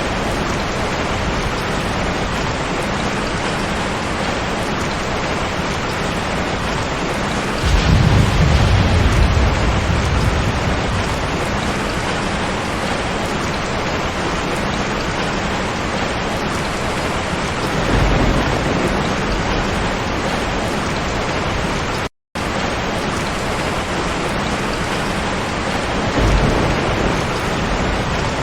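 Steady heavy rain with rolls of thunder, the loudest rumble about 8 seconds in and softer ones around 18 and 26 seconds. All sound cuts out for a split second about 22 seconds in.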